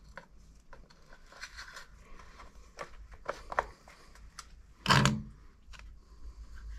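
Scattered small clicks and rustles of handling and clothing movement close to the microphone. A louder, brief rustle comes about five seconds in.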